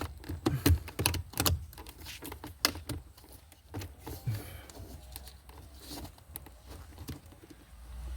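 Plastic radio and climate-control console trim on a Lexus IS250 dash being handled and pressed into place: a rapid string of light plastic clicks and knocks from its clips and tabs, thicker in the first few seconds and sparser after.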